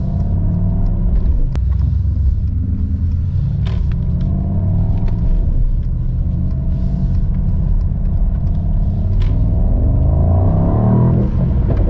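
Mercedes-AMG SL55's 4.0-litre twin-turbo V8 accelerating hard in Sport Plus mode, heard from inside the cabin. It is a US-spec car without the petrol particulate filter. The deep engine rumble climbs in pitch and drops back several times as it pulls up through the gears.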